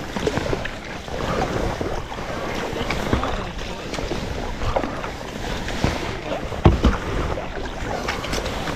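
Kayak paddle strokes and water splashing and washing against a sea kayak, with wind rumbling on the microphone. A sharp knock comes about three-quarters of the way through, likely a paddle striking the hull.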